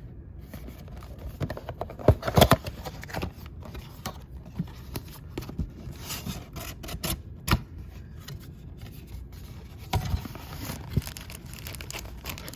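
A sealed trading card box being opened by hand: wrapping tearing and crinkling and cardboard scraping, in irregular rustles and clicks that are loudest about two seconds in.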